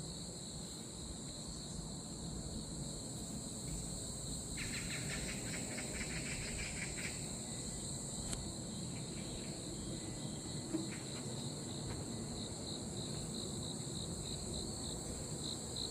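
Insects chirping steadily at two high pitches, joined for a couple of seconds about five seconds in by a lower, rapid trill, and toward the end by chirps pulsing a few times a second. A low background rumble runs underneath.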